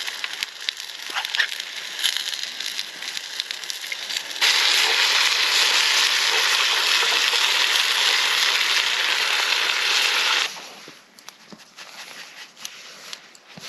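Food frying in a pan over a campfire: crackling and spitting at first, then a loud, steady sizzle that starts and cuts off abruptly after about six seconds, followed by quieter scattered crackles.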